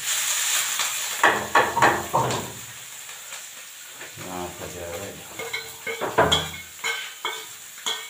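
Food tipped from a steel bowl into a hot pan on a gas stove starts sizzling with a sudden hiss that fades over a few seconds. Later, steel plates and a spoon clink against each other and the pan.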